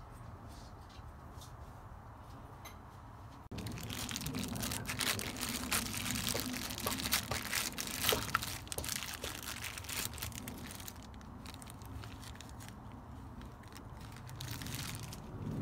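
Gas torch flame hissing on a copper pipe joint, with flux paste crackling and spitting as it heats. It starts abruptly a few seconds in and is loudest in the middle.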